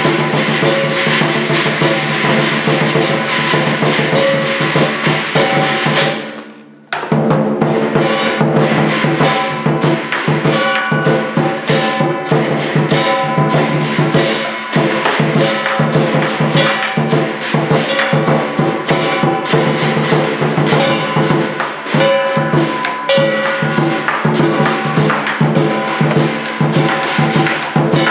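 Live lion dance percussion: a large Chinese lion drum beaten in a fast, driving rhythm with hand cymbals clashing and a gong ringing underneath. The playing fades out and breaks off briefly about six seconds in, then resumes.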